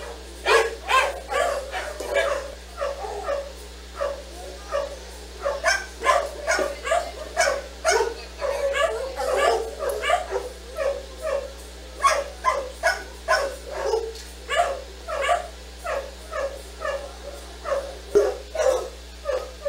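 A dog barking and yipping over and over, about two barks a second without a break.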